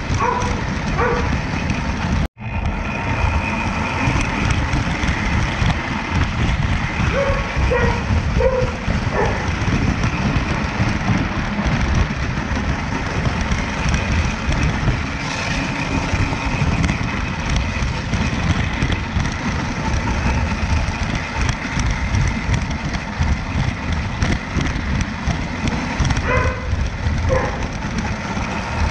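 Lionel Standard Gauge model train heard from on board as it runs along metal track: a steady rumbling clatter of wheels and motor, with a brief dropout about two seconds in.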